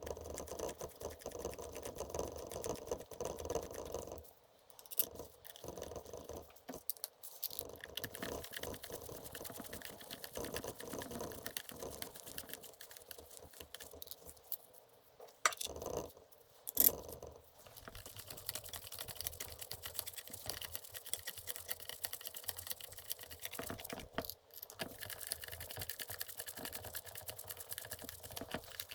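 Small, dense clicks, taps and rustles, like parts and tools being handled on a bench, with two sharper, louder clicks about halfway through.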